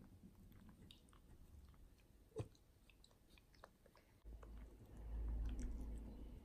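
Miniature dachshund faintly chewing food taken from a hand, with small scattered mouth clicks and one sharper click about two and a half seconds in. A low rumble comes in past the middle and is the loudest sound.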